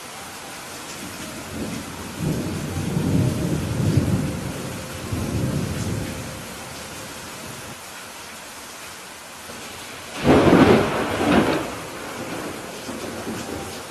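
Steady rain with thunder. A low rolling rumble of thunder comes about two seconds in and lasts several seconds, then a louder, sharper thunderclap comes about ten seconds in.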